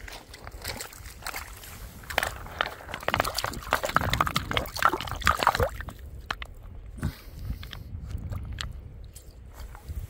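An agate nodule being sloshed and rubbed by hand in shallow river water, washing off the dirt, with a run of loud splashing from about two seconds in to about six seconds in. Before it, a few footsteps crunch on river gravel.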